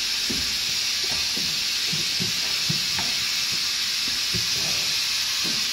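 Steady hissing noise with a few faint, irregular clunks underneath.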